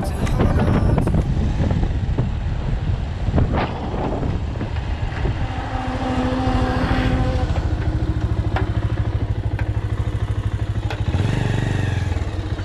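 Motorcycle engine running at low speed with a steady low pulsing beat, getting louder about eleven seconds in as it pulls away.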